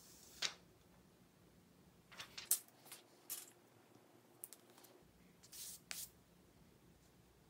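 Fingers handling and tapping a Samsung Galaxy S21 smartphone: faint scattered clicks and taps, a small cluster of them a couple of seconds in, and a short scratchy rub of skin on the phone's back near the end.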